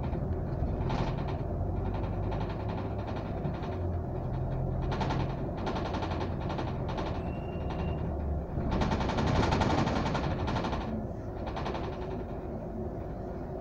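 Ride-along sound inside a moving double-decker bus: the engine drones steadily under road noise and cabin rattles. A louder rushing stretch comes about nine seconds in, and a brief thin squeal shortly before it.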